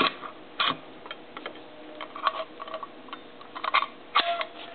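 Hand-made steel padlock, a reproduction of a Viking-age lock, clicking and scraping as the shackle's spring bolt is pushed into the lock body to lock it: a string of irregular metallic clicks, a few of them ringing briefly.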